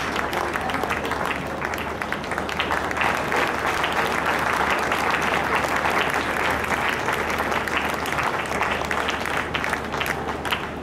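Audience applause: many people clapping steadily, with a dense patter of hand claps that thins slightly near the end.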